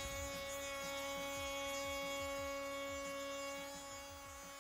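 Makita cordless trim router running at steady speed, a constant high whine, as it cuts a hinge mortise into a Douglas fir door post.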